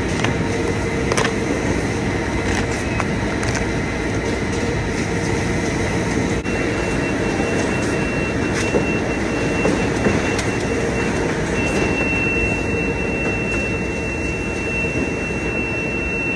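Steady, loud din of warehouse conveyors and packing machinery running, with a constant hum and a few sharp clacks. A thin high whine comes in about six seconds in and holds.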